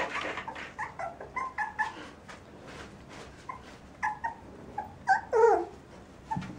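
Puppies yelping and whining: a run of short, high yelps, then a louder whine that falls in pitch about five seconds in.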